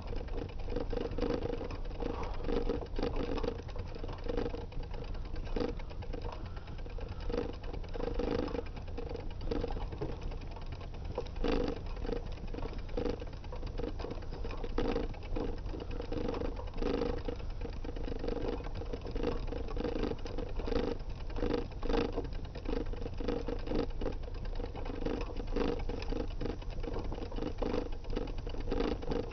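Bicycle rolling along a road, heard through a handlebar-mounted camera: a steady low rumble with irregular knocks and rattles.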